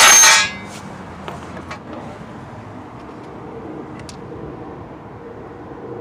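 A hammer blow on a steel chisel driving the seized front wheel hub out of a Chevy Malibu's steering knuckle, its metallic ring dying away in about half a second. A steady low background noise follows, with a few faint ticks.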